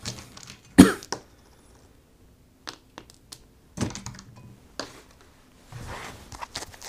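Playing cards and game pieces handled on a tabletop: scattered taps and knocks, the loudest about a second in, and a brief soft rustle near the end.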